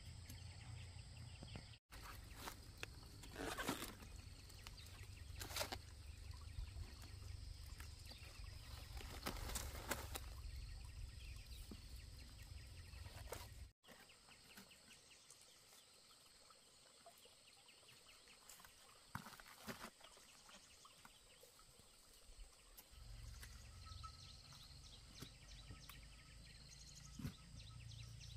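Quiet outdoor ambience with a low rumble, broken a few times by short rustling and snapping as cabbage heads are cut from their stalks and handled.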